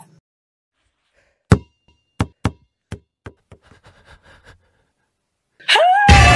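A series of sharp knocks: the first is the loudest, and the rest grow fainter and come closer together. Near the end a sudden loud horror-music sting hits.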